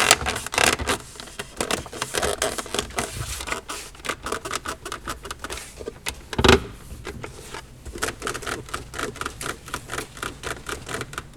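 Plastic trim of an Audi Q5's centre console creaking and clicking over and over as it is pressed by hand, with one louder knock about six and a half seconds in. These are the trim squeaks the owner complains of.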